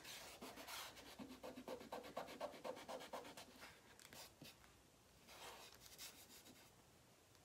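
Faint, quick rubbing strokes of fingers smoothing an adhesive Chalk Couture silkscreen transfer down onto a sign board. A fast run of strokes in the first half is followed by a shorter one a little past the middle.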